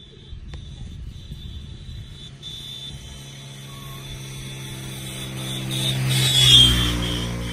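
A motor vehicle passing by, its engine growing louder to a peak about six and a half seconds in, then fading away.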